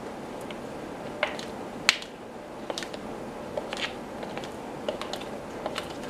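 Yellow plastic bowl knocking and scraping on a tile floor as an African red-bellied parrot pushes and tips it: irregular sharp clicks and taps, the loudest about two seconds in, over steady room noise.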